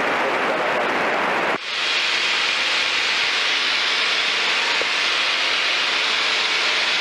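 Steady in-flight noise of a Piper Tomahawk heard through the aircraft's intercom audio feed. About one and a half seconds in, the fuller noise cuts off abruptly, leaving a thinner, higher-pitched steady hiss.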